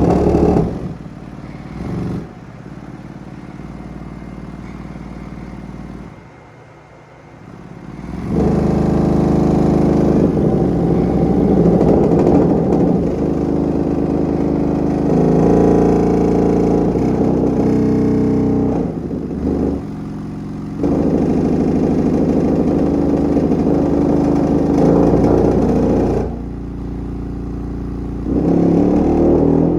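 Bare subwoofer driven open-air by a low test tone from a frequency generator, its overdriven cone giving a rough tone with many overtones that shifts in pitch and level. It drops away several times, most deeply about six to eight seconds in, then comes back loud.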